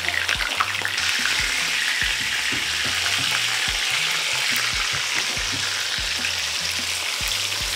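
Whole seasoned red snapper shallow-frying in vegetable oil heated to about 375°F: a steady sizzle that grows louder about a second in. Quiet background music plays underneath.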